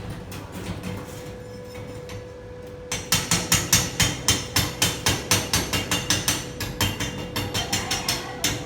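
A hand hammer striking metal in a rapid, even series of sharp blows, about four or five a second, starting about three seconds in and going on steadily.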